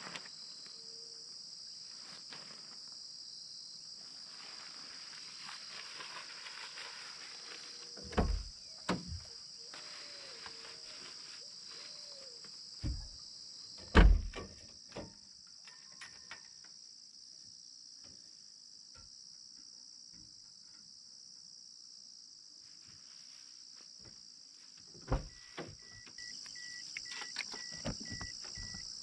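Steady high-pitched chirring of insects, with several knocks and thumps, the loudest about halfway through. In the last few seconds a car's door-open warning chime beeps rapidly.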